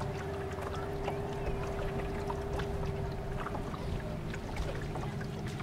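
A boat motor running steadily at an even pitch, with scattered short clicks and brief high chirps.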